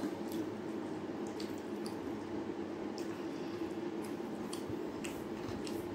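A hand mixing and squeezing rice with dal and curry on a steel plate, making wet squishing sounds with scattered small clicks, over a steady low background hum.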